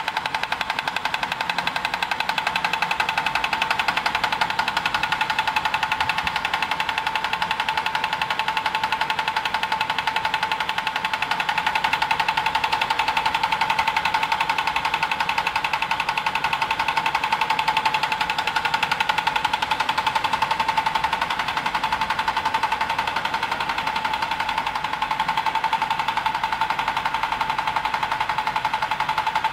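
RFID dry inlay laminating machine running at speed, with a fast, even mechanical rattle and a steady whine.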